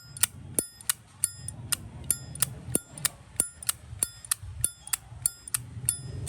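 Zippo lighter lid flicked open and snapped shut over and over, about three sharp metallic clinks a second, each with a brief ring: the lighter's characteristic "good sound" being shown off.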